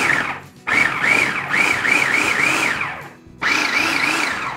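Hamilton Beach food processor pulsed in short runs, its motor whining. One run ends about half a second in, a longer one lasts about two seconds, and a third starts near the end. The whine wobbles in pitch as the blade cuts cold butter chunks into the flour.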